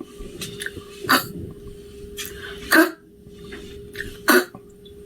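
A voice making the sound of the letter C, a short, voiceless, cough-like "k" repeated three times about a second and a half apart, with a few fainter clicks between.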